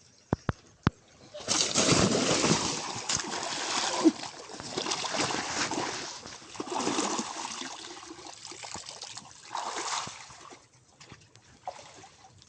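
Water splashing and sloshing in irregular surges for about nine seconds, starting with a few sharp clicks just before.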